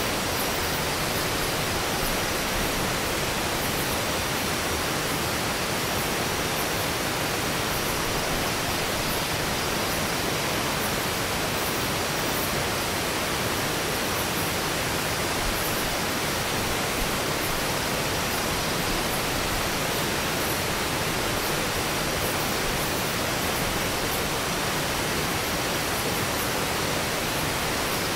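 Steady rushing of a river running over boulders.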